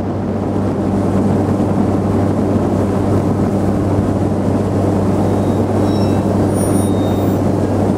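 A motorboat's engine running steadily as the boat cruises along, a low even drone.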